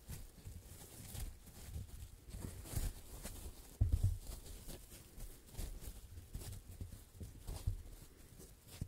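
Blocks of foam being squished, tapped and scratched by hands close to the microphones. It comes as irregular soft thumps and scratchy clicks, loudest about four seconds in.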